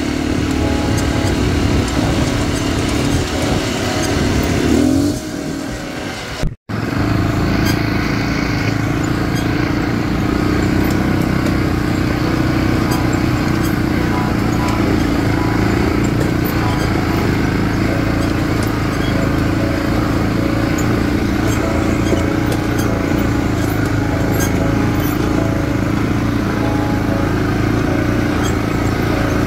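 Off-road buggy's engine running steadily under way on a rough dirt track, a continuous drone with small rattles and clicks. It breaks off for a moment about six seconds in, then carries on unchanged.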